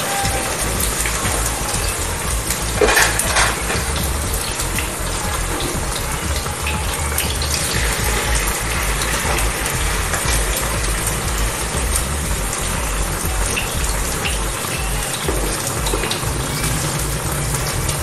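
Anchovy fritters sizzling steadily in frying oil in a small pan, with coconut milk at a full boil in a wok beside it and a spatula working in the pan. There is a brief louder burst about three seconds in.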